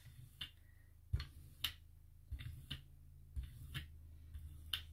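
A 4-inch brayer rolled back and forth through paint on a gel printing plate, giving faint sticky clicks at irregular intervals, roughly every half second, over a low steady hum.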